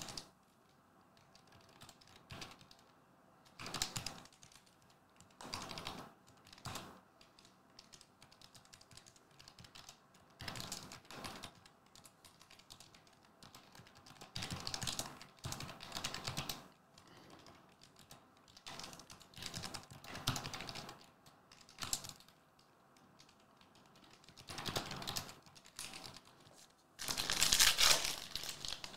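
Mosaic basketball trading cards being handled: irregular bursts of cards sliding and scraping against each other as they are gathered and stacked. Near the end comes a louder rustling burst as a foil pack wrapper is opened.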